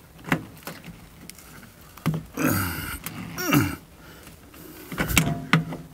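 Clicks and knocks of a generator power cord's plug being worked by hand onto a Generlink meter-mounted transfer switch connector, with a cluster of clicks near the end as it seats. In the middle come two short grunt-like voice sounds that fall in pitch.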